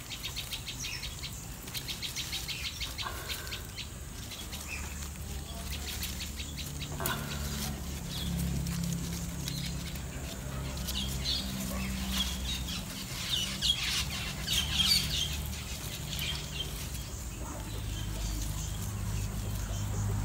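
Outdoor garden ambience: small birds chirping now and then, with a rapid high ticking trill in the first few seconds. A low steady hum comes in about a third of the way through.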